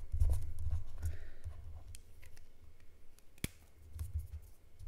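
Fingertips rubbing dried rubbery masking frisket off plastic painting film, a scratchy rubbing with small scattered clicks and one sharper click about three and a half seconds in.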